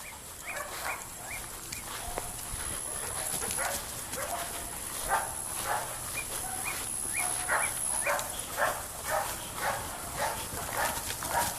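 Dogs barking repeatedly, about two barks a second, the barking starting up about four seconds in and carrying on.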